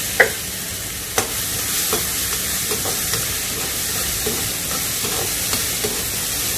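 Chopped shallots sizzling in oil in a pan while being stirred and sautéed, with a steady sizzle. There are two sharp knocks within the first second or so.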